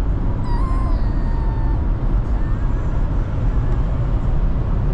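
Young mini Aussiedoodle puppy whining: a thin, high whimper starting about half a second in and lasting about a second, with a brief faint one a little later. Steady road rumble of the car cabin underneath.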